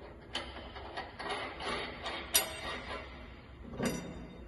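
Metal clinks and clicks of a washer and nut being fitted and tightened onto a bolt on the finish mower's front hitch strap, with a sharper knock about two and a half seconds in.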